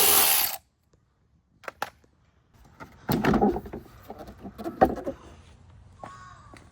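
A power drill spinning out a 10 mm bolt stops about half a second in. After a short silence come clicks, then a run of hard plastic clunks and knocks between about three and five seconds in as the headlight unit is worked loose.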